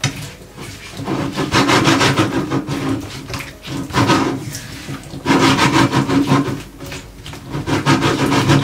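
A spatula scraping and stirring chunks of yam and raw plantain, coated in spice powders with a little water, in a pan: rasping strokes in several spells with short pauses between them.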